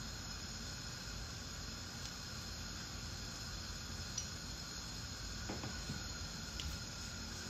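Steady hiss of food cooking in a pan on the stove, with a few faint clicks.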